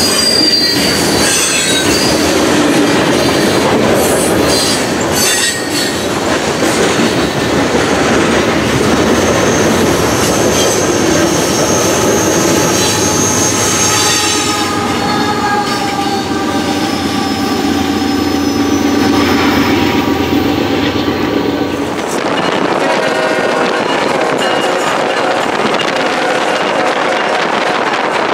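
Freight train rolling past, steel wheels squealing and clicking over the rails, with a diesel locomotive going by about halfway through. Near the end the sound cuts abruptly to a steadier, duller rumble.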